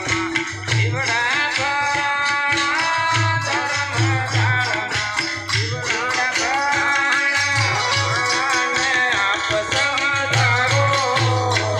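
A man singing a tribal folk song with a long, wavering melody, backed by a steady drum beat and jingling tambourine.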